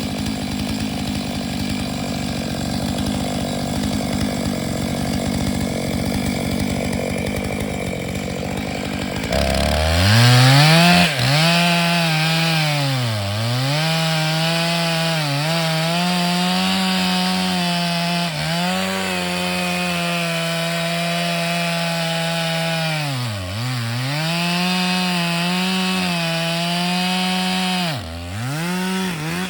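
Chainsaw on a chainsaw mill, cutting along a log. For the first nine seconds or so it runs with a lower, rougher sound. Then it revs up sharply to a high, steady full-throttle note, which sags and recovers about four times as the chain bogs in the cut.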